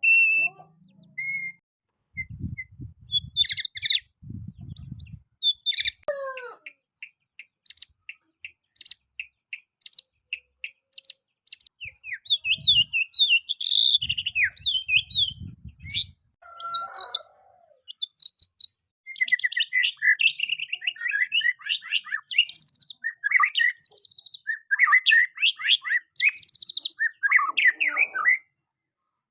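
Young white-rumped shama singing a varied song of sliding whistles, quick chirps and rattling runs of notes in phrases broken by short pauses, busiest in the last third. Low rumbling noise comes in twice, early on and near the middle.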